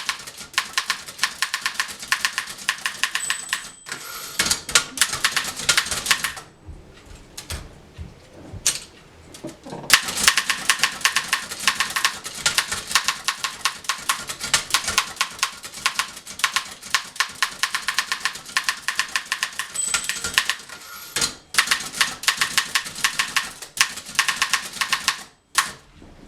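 A freshly restored 1911 Continental Standard manual typewriter being typed on fast: a rapid run of sharp key and typebar strikes. The strikes thin out to a few scattered clicks for about three seconds a quarter of the way in, then resume at full speed.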